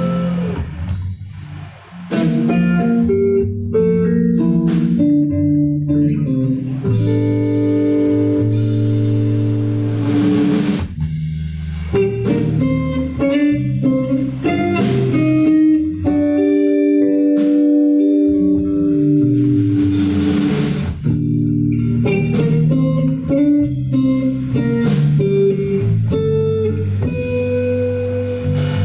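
Instrumental band playing live: electric guitar lines over bass guitar, with no singing. The music drops briefly about two seconds in, then carries on at full level.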